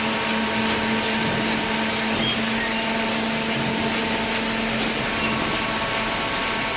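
Paper baler machine running: a steady mechanical drone with a constant hum and no break.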